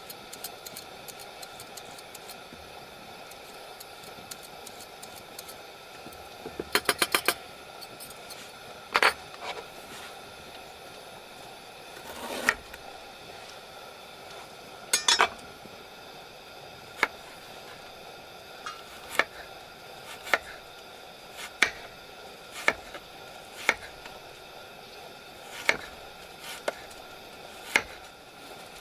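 Sharp knocks and clinks of camp cookware and utensils being handled over a steady hiss of rain: a quick run of about eight clicks, then single knocks roughly once a second in the second half.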